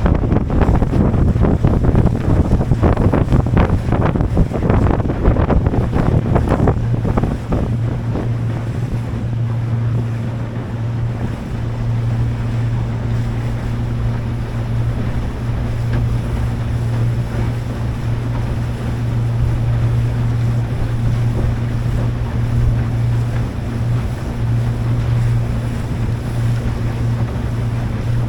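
Motorboat under way: wind gusts buffet the microphone over the water noise for about the first seven seconds, then the boat's engine drone comes through, low and steady.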